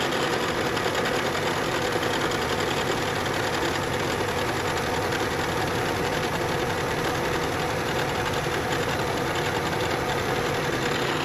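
Bridgeport vertical mill cutting aluminum with a 3/4-inch carbide end mill in a conventional-milling pass: a steady mix of cutting noise and spindle drive, with a faint even hum.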